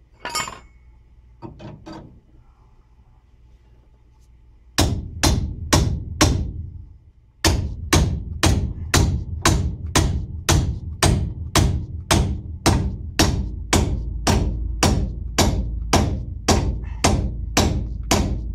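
Hammer blows on a steel fork tool wedged between a truck's outer tie rod end and the steering arm, driving it in to separate the joint. A few light clicks, then three strikes about five seconds in, then steady blows about two a second.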